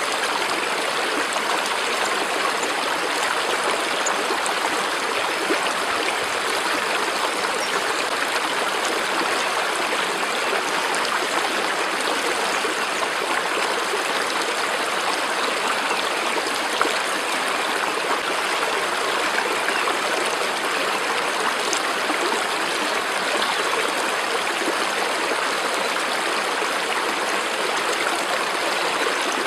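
Steady, even rush of running water from a flowing stream, unchanging throughout.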